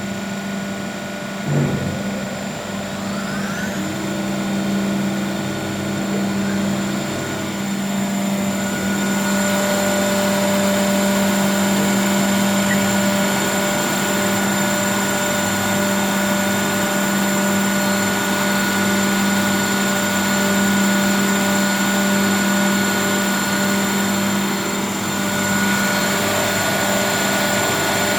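Weinig Powermat 400 LE four-sided moulder running: a knock and rising whines as spindle motors spin up in the first few seconds, with more tones joining about 4 and 9 seconds in, then a steady machine whine and hum.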